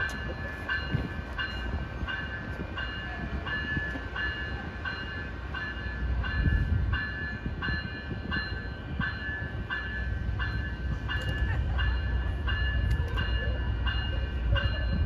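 Railroad grade-crossing bell ringing steadily, about one and a half strikes a second, over the low rumble of a train at the crossing.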